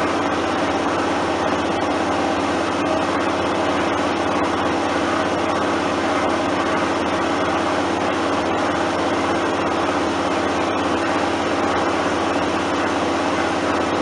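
Vibratory finishing bowl machine running: a steady, even mechanical vibration noise that holds constant throughout.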